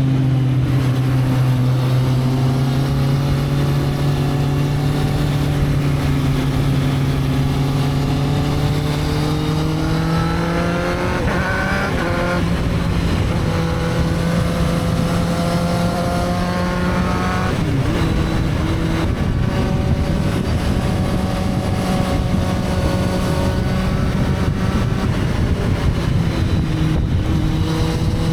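Motorcycle engine running under way over steady road and wind noise. Its pitch eases down at first, climbs until about eleven seconds in, drops sharply at a gear change, then holds fairly steady with another shift near eighteen seconds.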